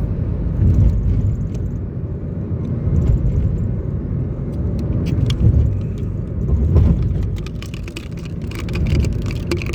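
Steady low rumble of a vehicle on the move, with scattered light clicks and rattles.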